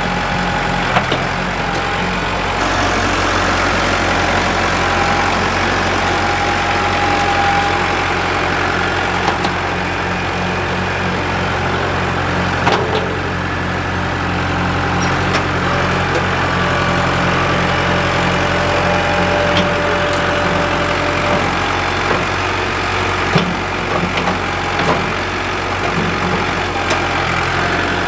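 Diesel tractor engine running steadily, with a few sharp knocks or clanks along the way.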